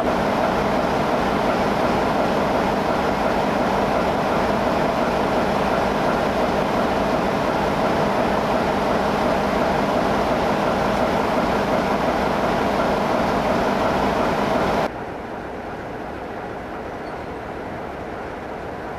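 Train on a heritage railway running steadily, a loud continuous mechanical rumble. About fifteen seconds in it cuts abruptly to a quieter, duller steady rumble.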